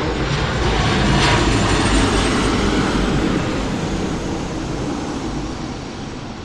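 Jet airliner's engines rushing past, loudest about one to three seconds in and then steadily fading away.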